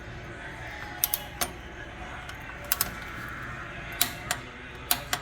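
Torque wrench on an oil pan drain plug bolt being tightened to 29 foot-pounds: a series of sharp metallic clicks, roughly in pairs.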